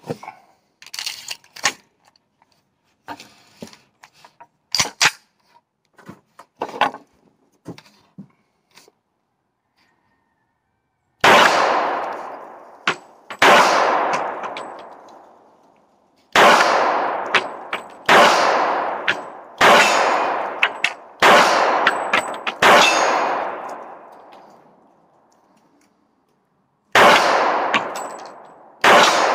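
Smith & Wesson Performance Center 1911 pistol in .45 ACP firing about nine single shots, spaced one and a half to three seconds apart, each with a long echo dying away over a second or two. The shots begin about eleven seconds in, after several light metallic clicks and knocks of handling the magazine and pistol.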